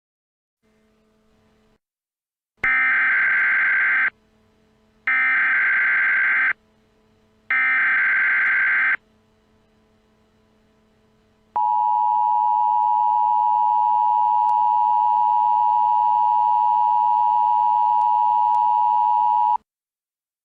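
Emergency Alert System tones: three short bursts of warbling digital data tones, the SAME header that opens an alert, then the steady two-tone attention signal held for about eight seconds.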